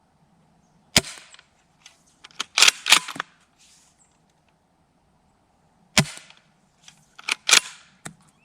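Double Bell Kar98K shell-ejecting gas airsoft rifle firing twice, about five seconds apart, each sharp pop followed a second or so later by a quick run of clacks as the bolt is worked to eject the shell and chamber the next round.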